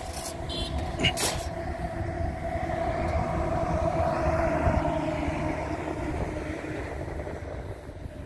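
Freight train of autorack cars moving on the rails: a steady low rumble with a steady ringing tone over it. The sound swells to its loudest a little past the middle as a pickup truck drives past on the road in front.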